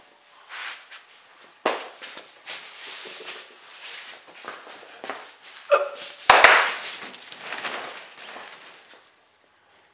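A Coton de Tulear scrambling through a nylon pop-up play tunnel: the fabric rustles and scrapes in uneven bursts as it moves, loudest with a thump about six seconds in, then dying away near the end.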